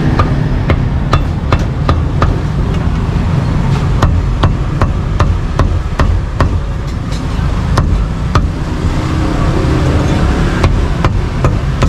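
Cleaver chopping roasted meat on a chopping board in quick, irregular strokes, about two to three a second, with a short lull about two-thirds of the way through. A steady low traffic rumble runs underneath.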